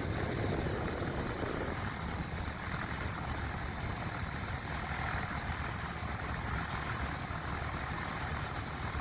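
New Holland TR96 combine running steadily while slowly unloading barley: an even engine drone with faint steady high whines above it.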